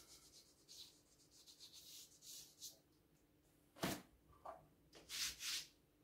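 Faint rubbing and swishing of wallpaper as a hand slides and smooths it against the wall, with a sharp tap about four seconds in.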